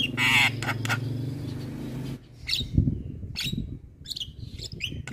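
Javan myna calling: a loud, harsh rasping call in the first second, then a run of short chattering and clicking notes. A steady low hum under the first two seconds stops abruptly, and there is a low thump about three seconds in.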